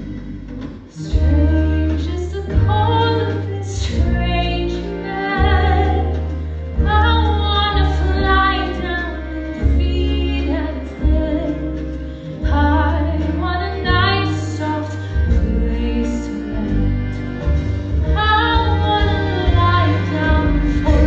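Musical theatre song: a woman singing over a band, with heavy sustained bass notes underneath.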